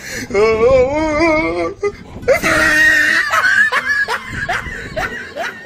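A wavering, wailing voice, then a loud harsh scream, then a quick run of short rising cries, about two or three a second.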